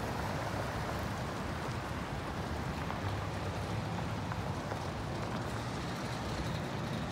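Pickup trucks driving past on a gravel road: a steady hum of engines mixed with the noise of tyres on gravel.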